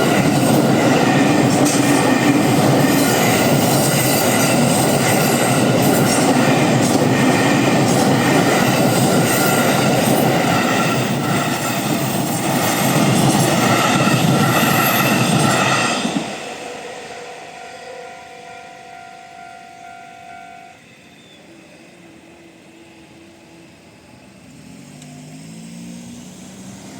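A 15-car electric commuter train passing over a level crossing, its wheels clicking over the rail joints, with the crossing's warning bell ringing. The train noise stops abruptly about sixteen seconds in, leaving the crossing bell, which stops about four seconds later. Near the end there is a low rising hum.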